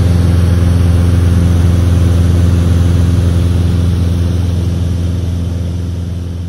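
Piper PA-28-140 Cherokee's four-cylinder Lycoming O-320 engine and propeller running steadily at cruise power, heard from inside the cabin as a loud, even drone. It fades down over the last second or so.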